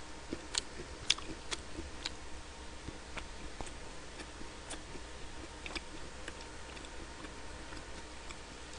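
Faint, scattered clicks and taps of eating: a plastic fork picking at food in a plastic lunchbox tray, along with chewing, over a low steady hum. The clearest clicks fall in the first couple of seconds.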